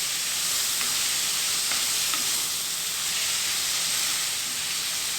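Onion, tomato, karpooravalli (Indian borage) leaves and mint sizzling in a little oil in a kadai as they are sautéed: a steady frying hiss with a few faint spatula ticks.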